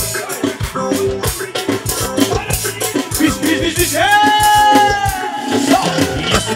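Live dance music played by clarinets over a steady, quick percussion beat, with one long held high note about four seconds in.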